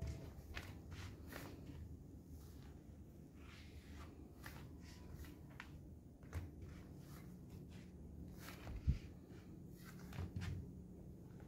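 Soft footsteps in a quiet room with a steady low hum, and one louder low thump about nine seconds in.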